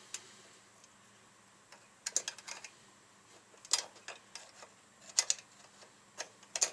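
Scattered light metallic clicks and taps of a small wrench and feeler gauge on the valve rocker arm and adjusting bolt of a Dnepr flat-twin engine's cylinder head, as a too-tight valve clearance is reset. The clicks come in a few short clusters with quiet in between.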